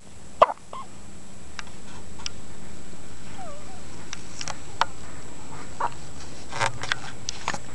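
Baby hiccupping: a string of short, sharp hiccups at irregular intervals, about one a second. The first one, near the start, is the loudest.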